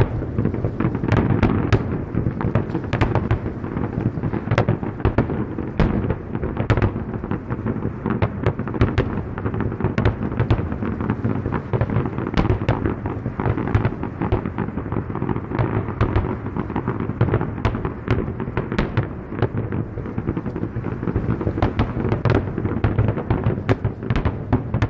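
Aerial firework shells bursting in a continuous barrage, many sharp bangs a second over a low rumble.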